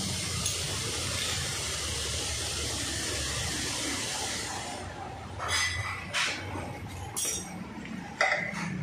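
A steady hiss for about the first five seconds, then a few short, sharp bursts with metallic clinks, the loudest one near the end.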